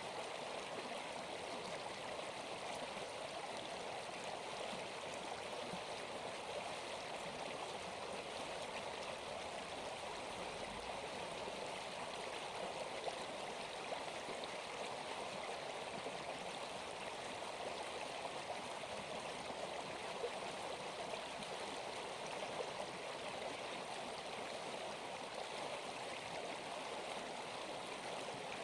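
Steady, even rushing sound of flowing water, like a stream.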